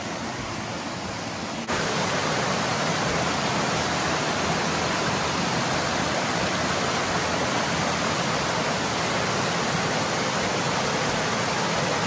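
Small woodland creek waterfall cascading over layered rock ledges, a steady loud rush of water, running high after a night of rain. The rush jumps louder about two seconds in.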